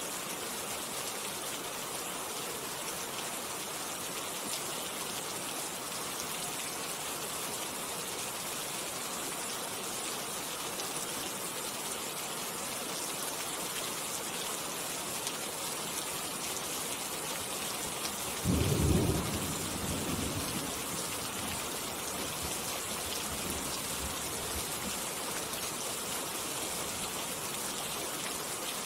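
Steady rain falling, an even hiss throughout. About two-thirds of the way through, a sudden low rumble rises above it for a second or two, then fades over the next few seconds.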